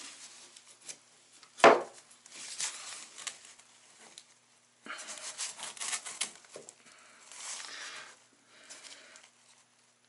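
Hands working materials at the base of a wall: scattered scraping and rustling, with one sharp knock about two seconds in.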